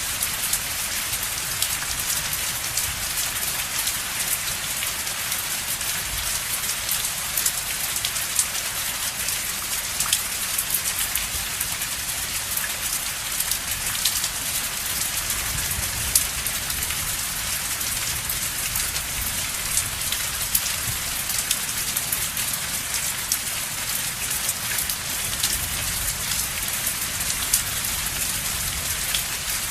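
Steady rain falling on a surface, an even hiss dotted with the ticks of individual drops.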